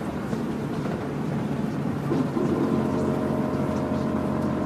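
Car driving at speed, heard from inside the cabin: a steady engine drone over tyre and road noise, with the engine's hum growing stronger about two seconds in.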